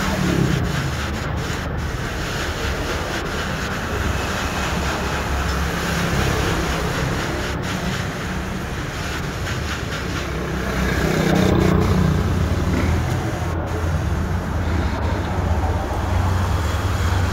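Steady road traffic noise, with a continuous rumble of passing vehicles that grows a little louder about eleven seconds in.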